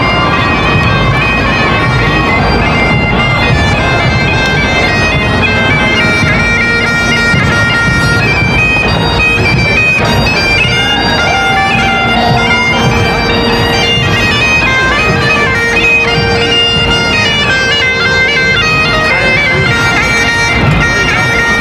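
Bagpipes playing a marching tune over a steady drone, loud and unbroken throughout.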